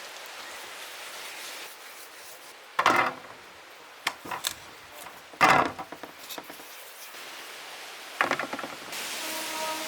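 Momo dough being pinched into small balls by hand: a few short knocks and rubs, the loudest about three and five and a half seconds in.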